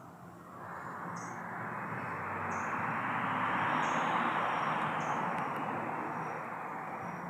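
A rushing noise that swells to a peak about four seconds in and slowly fades, with faint short high chirps repeating above it.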